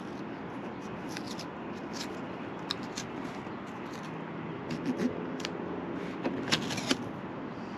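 Masking tape being pressed and smoothed onto a caravan sunroof by hand: light crinkles and sharp little clicks of fingers and tape against the panel, a cluster about five seconds in and the sharpest near the end. A steady background hiss runs underneath.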